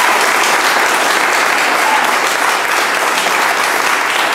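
An audience applauding loudly and steadily.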